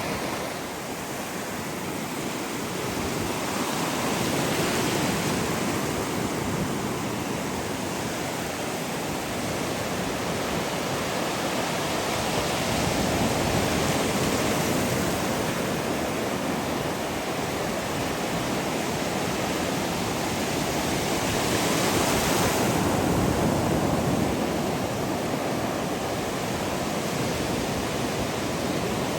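Ocean surf washing in steadily, swelling louder about every eight to nine seconds as waves break.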